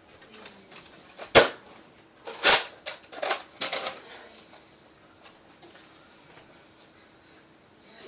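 Nerf blasters firing: a sharp shot about a second and a half in, a louder one about a second later, then three fainter snaps in quick succession. After that only faint background remains.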